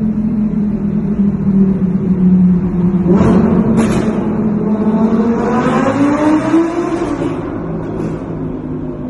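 Audi R8's engine through its Quicksilver exhaust, running at a steady note, then revving up with a rising pitch from about three seconds in before easing off near the end. Short, sharp exhaust crackles come about three and four seconds in and again shortly before the end.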